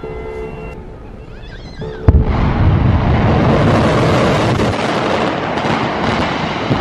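A steady warning-siren tone stops under a second in. About two seconds in, the explosive charges in a concrete hyperboloid cooling tower go off with a sharp blast, followed by a loud continuous rumble of the detonations and the tower collapsing.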